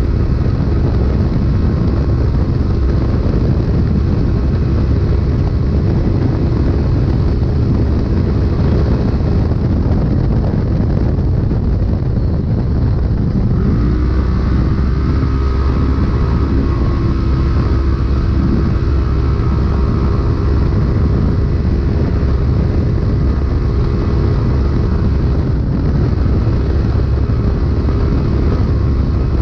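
Polaris RZR UTV running hard at race pace, heard from inside the cab, with a constant rush of wind and rough-terrain noise over the engine. About halfway through, the engine note rises a little and then holds steady.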